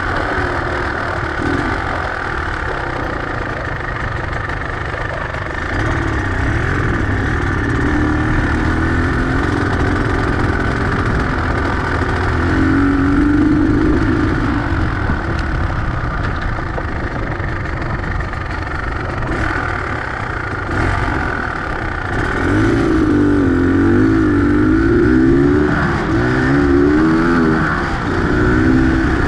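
Beta X-Trainer 250's two-stroke single-cylinder engine running under the rider, its pitch rising and falling as the throttle is opened and eased, with more frequent revving in the second half.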